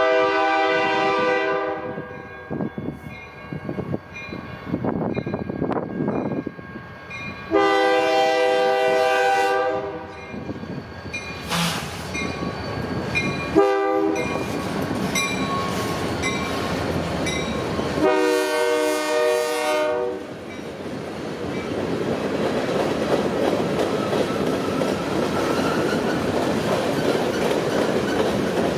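Diesel locomotive's air horn sounding the grade-crossing signal: two long blasts, a short one and a final long one. The train then rolls past with a steady rumble and wheel clatter.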